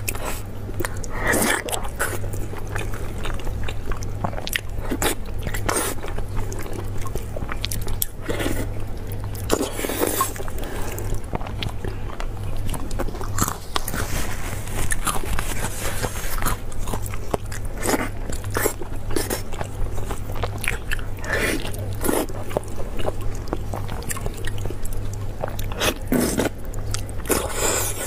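Close-miked eating: a person biting and chewing soft, gelatinous braised beef joint meat with tendon and skin off the bone, with irregular wet clicks and lip smacks.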